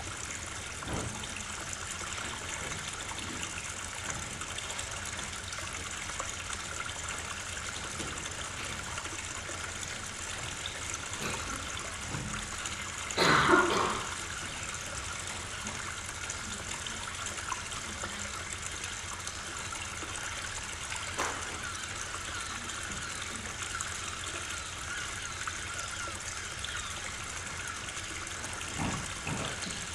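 Steady water sound from the soundtrack of a projected video of a boat on a lake, played over loudspeakers in a large hall. A single louder noise lasting about a second cuts in roughly halfway through.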